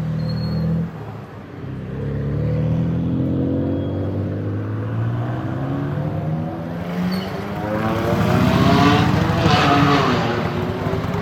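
BMW M4 (F82) twin-turbo inline-six through an aftermarket Fi exhaust, running loud at low revs, then accelerating hard in the second half, the revs climbing and then dropping back near the end.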